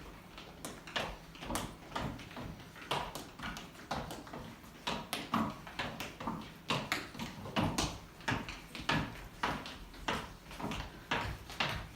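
Running footsteps of several people: quick, uneven footfalls and knocks.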